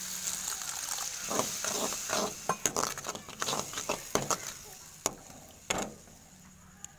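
Onion, ginger-garlic and sauce paste sizzling in a hot pan as a little water is poured in, with a metal spatula scraping and knocking against the pan as the sauce is stirred. The sizzle dies away toward the end.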